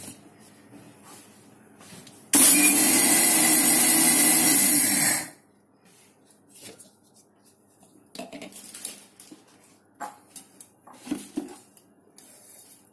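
Electric mixer grinder (mixie) running one short burst of about three seconds, starting about two seconds in and cutting off abruptly, coarsely grinding dry-roasted cumin, fennel and fenugreek seeds. A few light knocks of the steel jar and plastic lid being handled follow.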